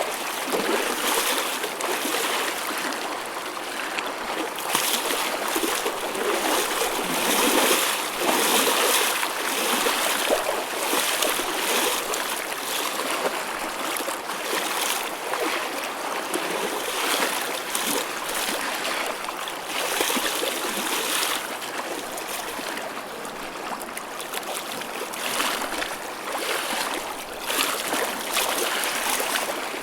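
Choppy ocean waves: a continuous rush of water, with frequent splashing surges.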